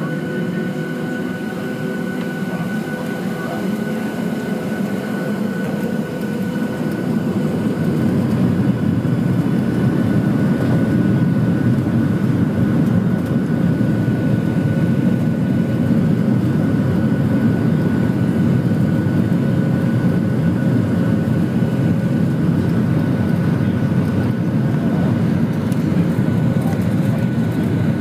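Boeing 737-700's CFM56-7B jet engines, heard from inside the cabin, spooling up to takeoff thrust. A whine rises in pitch over the first few seconds and the engine noise grows louder until about eight seconds in, then holds steady with a high whine over it as the jet accelerates down the runway.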